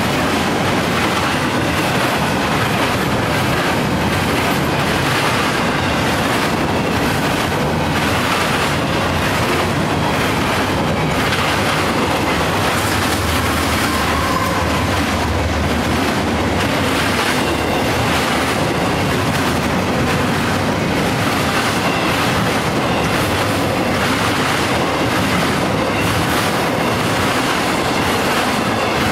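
Intermodal freight train passing at speed: a steady rumble and clatter of steel wheels over the rail joints. A mid-train diesel locomotive goes by about halfway through, adding a deeper engine drone for a few seconds.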